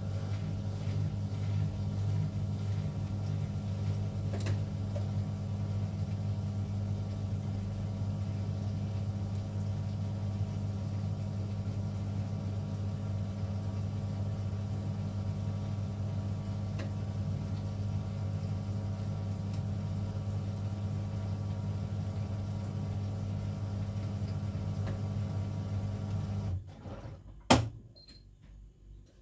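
Beko bPRO500 washing machine's drain pump humming steadily while the drum stands still, pumping out at the end of the calibration cycle. The hum cuts off suddenly near the end, followed a moment later by a single sharp click.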